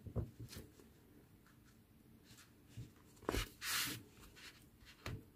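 Faint handling sounds of a yarn needle being worked through crocheted stitches and the yarn tail pulled through to hide it: a few light clicks and a brief scratchy rustle a little past halfway.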